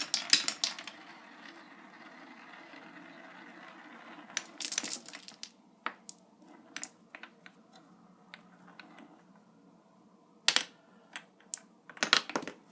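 A marble running down a Quadrilla wooden marble run. A burst of clacks as it sets off, a steady rolling sound along the wooden track for about four seconds, then scattered clicks and knocks as it drops through the pieces, with louder clatters near the middle and just before the end.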